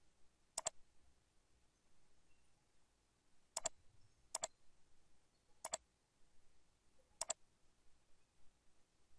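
Computer mouse clicks, five in all at uneven spacing of about one to three seconds, each a quick double tick.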